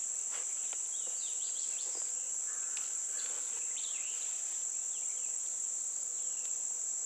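Steady high-pitched drone of a chorus of insects, with a few faint clicks from a steel cable snare being handled.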